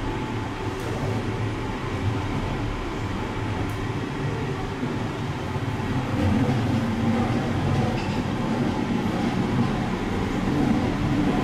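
Steady running noise of a Seibu Laview (001 series) electric express train, heard from inside the car, with wheel and track rumble under a faint hum. It grows a little louder about six seconds in.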